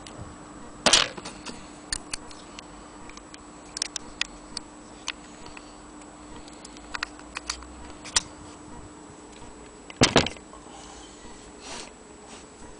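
Scattered metal clicks and knocks from an antique Jones hand-crank sewing machine being handled, its slide plates and parts moved by hand, with two louder knocks, one about a second in and one about ten seconds in.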